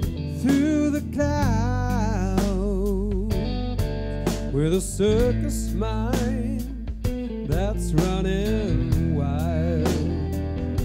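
Live rock'n'roll band playing, with guitars, drums and a wavering lead melody.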